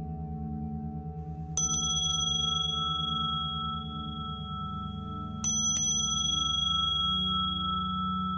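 Tibetan singing bowls: a low hum with a slow pulsing wobble, over which a small, high-pitched bell-like bowl is struck twice in quick succession about one and a half seconds in, and again about five and a half seconds in. Each strike leaves bright high tones ringing on.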